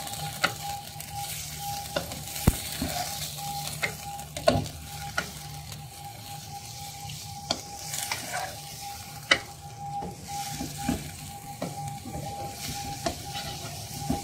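Beef pieces sizzling in hot oil with onions and whole spices as they are browned (bhuna), while a spatula stirs them. The spatula knocks and scrapes against the pan at irregular moments, a second or so apart, over a faint steady hum.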